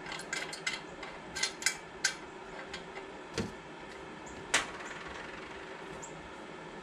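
Light clicks and taps of metal parts as a VW cooling fan is handled and turned on its alternator shaft. Most of them come in the first two seconds, and the loudest knock comes about four and a half seconds in, all over a steady low hum.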